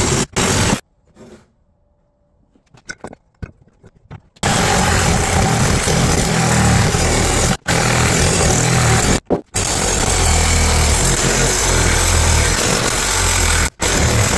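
DeWalt 20V cordless reciprocating saw running, its blade cutting through a cast aluminum intake manifold held in a vise. It stops about a second in, with a few faint clicks in the pause, then runs on, broken by three brief stops.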